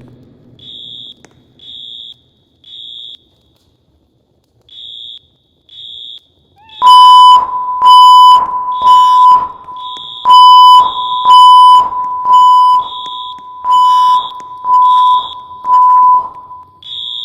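Building fire alarm sounding in groups of three beats, the temporal-three evacuation signal. A thin high-pitched beep repeats in sets of three throughout. About seven seconds in, a much louder, lower, buzzy alarm tone cuts in and pulses in threes alongside it.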